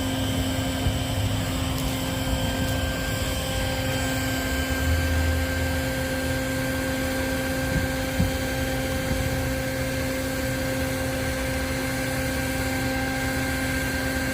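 Steady mechanical drone: a motor running at a constant speed, with a steady hum and a high whine above it, and a few faint knocks.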